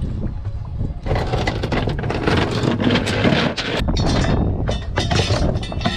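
Metal anchor chain clinking and rattling as it is hauled by hand over a boat's bow, with a dense run of sharp clinks starting about a second in, over a steady low rumble.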